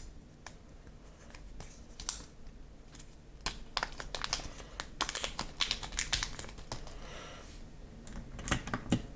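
A run of sharp clicks and taps from a mechanical keyboard as a metal keycap is pushed onto its Cherry MX-style switch and the keys are pressed. The clicks come thickest in the middle.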